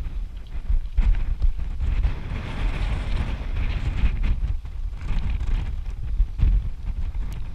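Wind buffeting the microphone: a rough low rumble that surges and drops from moment to moment.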